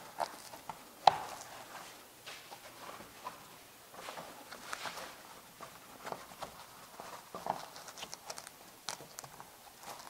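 Hands working a soft top's plastic rear deck retainer into its groove, with scattered soft clicks and rustles of the top's fabric. One sharper click about a second in.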